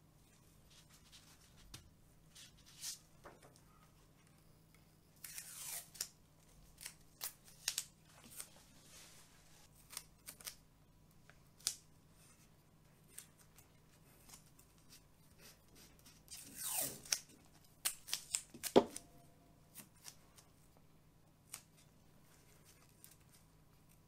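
Masking tape pulled off its roll twice, each a rip of about a second that falls in pitch, with sharp snaps as pieces are torn off. Between them come short clicks and rustles of gloved hands handling a plastic stencil.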